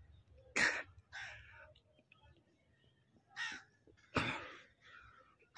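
Crows cawing: about five short, harsh caws, loosely in pairs, with gaps between them.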